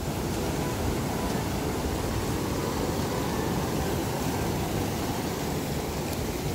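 Ocean surf washing over a rocky shore shelf: a steady rush of waves and foam.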